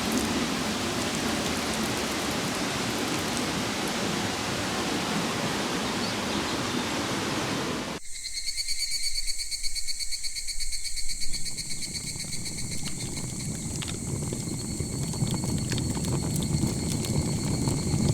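A steady, even hiss of outdoor noise for about eight seconds. It then switches abruptly to an insect chorus: several high-pitched, fast-pulsing trills held steadily over a low background rumble.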